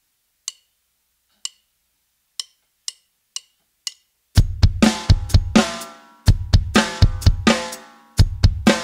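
Instrumental intro of a festive pop song: six sharp clicks counting in, two slow and then four twice as fast, then about four seconds in the band enters with drum kit, bass and sustained chords.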